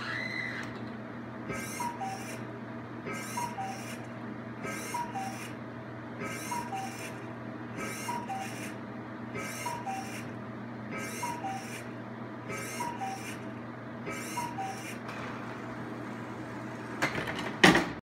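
Cuckoo clock prototype sounding its cuckoo call: a two-note falling 'cu-ckoo', repeated nine times about every one and a half seconds, over a steady low hum. A loud knock comes near the end.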